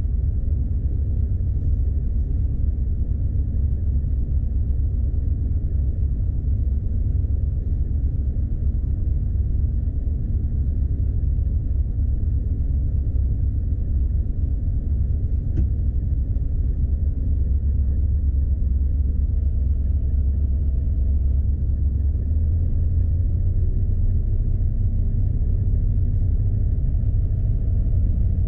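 Steady low rumble of a Scania truck's diesel engine running, heard from inside the cab.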